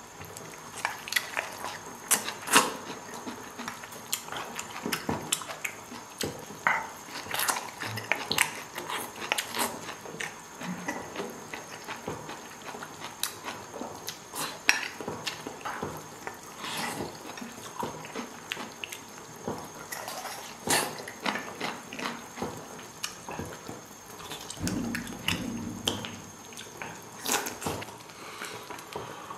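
A person eating with bamboo chopsticks from a stainless-steel bowl: chewing, slurping and smacking of hot food, with many short ticks and clinks of chopsticks against the metal bowl throughout.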